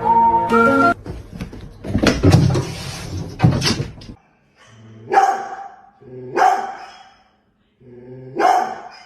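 A dog barking three times, each bark under a second long with gaps between them, after a few seconds of loud noise with knocks.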